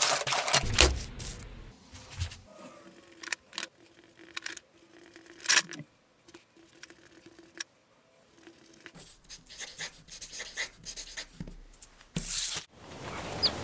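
Workshop handling noise: scattered light clicks, scrapes and knocks, with a few louder knocks in the first second and one about five and a half seconds in.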